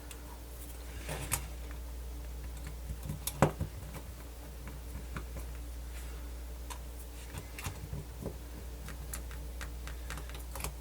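Scattered light clicks and taps of small tools and plastic parts being handled while a MiniDisc player is taken apart, the sharpest click about three and a half seconds in, over a steady low hum.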